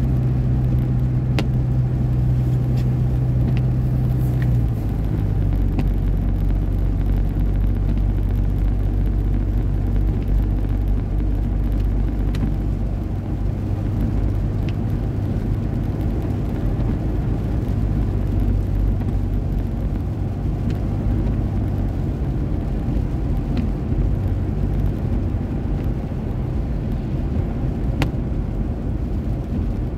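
Car cabin noise while driving on a wet road: a steady low engine and tyre drone, whose pitch drops about four and a half seconds in. A few light ticks sound now and then.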